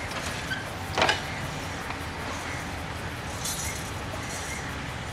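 Railbus, a road bus converted to run on rails, moving along the track with a steady engine rumble; a single sharp metallic clank about a second in.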